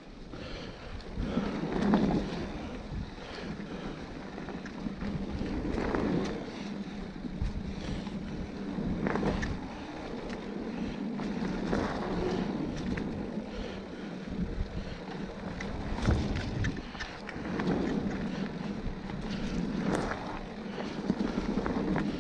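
Mountain bike rolling over a leaf-strewn dirt trail: tyre noise over the dry leaves and dirt, with wind on the microphone, swelling and easing every few seconds.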